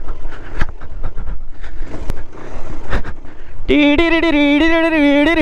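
Motorcycle jolting over a rocky track, with wind and knocks from the rough ground. Near the end the bike's horn sounds in one steady blast of about a second and a half that stops sharply.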